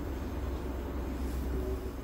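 Scania R tractor unit's diesel engine idling, a steady low rumble heard inside the cab.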